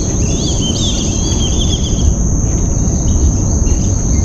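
Steady high-pitched insect drone with a run of quick bird chirps in the first two seconds, over a loud low rumble.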